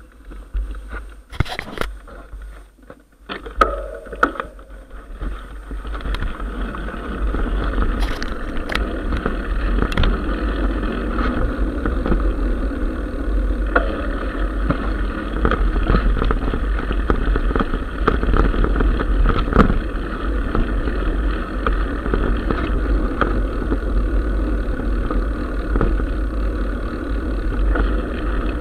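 A few knocks and clatter in the first seconds, then the steady rumble of a mountain bike riding a dirt track, with wind buffeting the camera microphone and small rattles from the bike over bumps.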